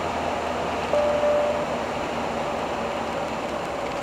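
Steady road and engine noise of a Fiat Ducato-based Hobby 600 camper driving at highway speed, easing off slightly. A short, steady tone sounds about a second in and lasts about half a second.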